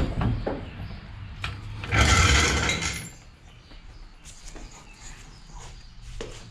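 Steel floor jack being let down and moved from under a car: clinks and knocks, with a loud rush of noise lasting about a second, about two seconds in.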